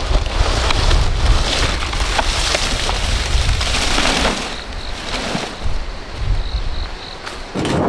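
Dry palm fronds rustling and scraping as they are dragged across grass and dirt, over wind buffeting the microphone.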